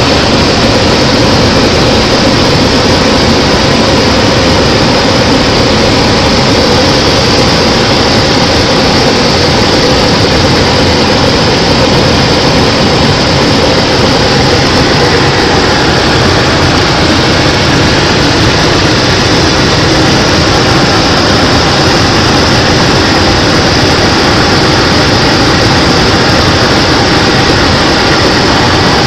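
Light aircraft's engine and propeller noise heard from inside the cockpit in flight: a loud, steady drone with no change in pitch.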